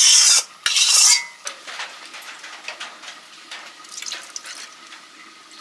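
Metal utensil scraping against a metal cooking vessel, twice in quick succession, then faint scattered clinks.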